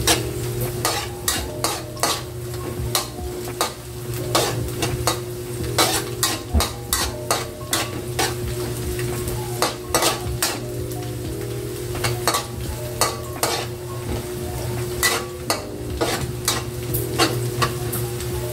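A metal spatula scraping and clinking against an aluminium wok as chopped garlic sizzles in oil, with a steady low hum underneath. The garlic is stirred non-stop so it browns evenly without burning.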